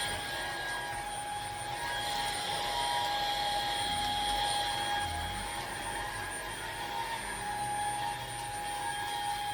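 Vacuum cleaner running, a steady motor whine over rushing air.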